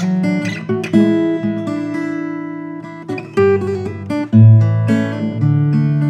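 GWG Guitars 'Black MAHO' 00-size mahogany acoustic guitar being played: plucked single notes and chords ringing out, with a louder chord struck about four seconds in.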